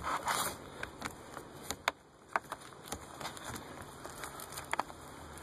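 Corrugated plastic split loom on a car's wiring harness being pried open and handled: scattered irregular clicks and crackles with some rustling.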